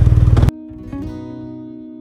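BMW R1200RT boxer-twin engine idling with an even pulse, cut off abruptly about half a second in by a short stretch of plucked acoustic guitar music.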